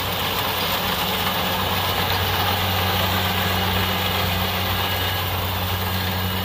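Kubota rice combine harvester at work: its diesel engine runs steadily under load beneath the even rush of the cutting and threshing machinery as it harvests rice.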